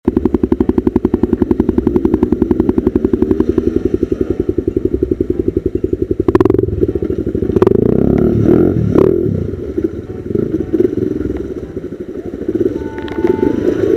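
Off-road motorcycle engine running with a fast, even beat, then a sharp knock about six seconds in, after which the engine sound turns uneven and swells and fades with clatter.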